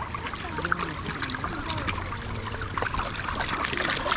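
River water flowing with a steady trickling rush.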